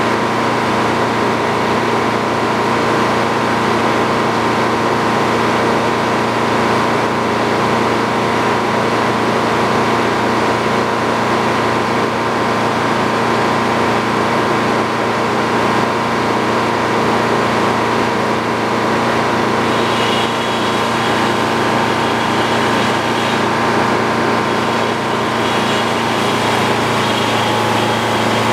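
Sawmill engine running steadily at a constant pitch, with a few faint higher tones joining about two-thirds of the way in.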